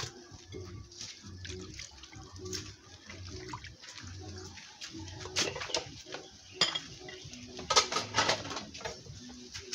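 Water splashing and sloshing in a metal cooking pot as meat is washed by hand, with light clinks against the pot. There are louder clattering knocks in the second half.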